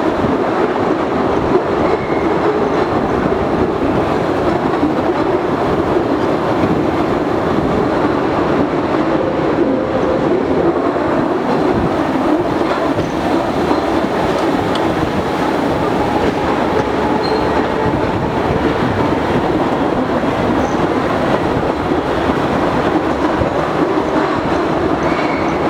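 Postojna Cave tourist train running steadily along its track, a loud continuous rumble and clatter of wheels on rail, with a few faint brief wheel squeals.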